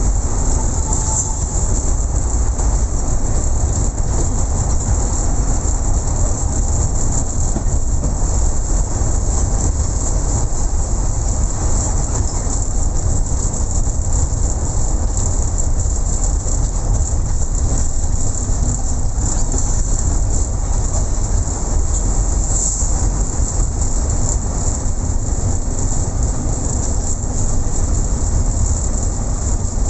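Steady rumble and hiss of a moving vehicle, unbroken throughout.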